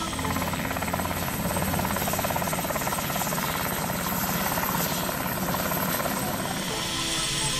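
Syton AH130 ultralight helicopter with a Solar T62 turbine, hovering just above the ground and heard from outside: a fast rotor chop over a high, steady turbine whine. The whine drops out near the end.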